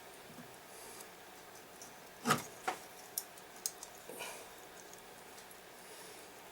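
Wall clock winding mechanism being turned by hand, giving a few irregular, sharp metal clicks, the loudest about two seconds in.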